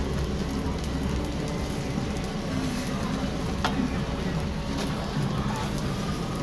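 Noodle sheets and eggs sizzling steadily on a hot flat-top griddle, with a metal knife blade scraping and tapping against the steel as the noodles are cut; one sharper tap a little past halfway.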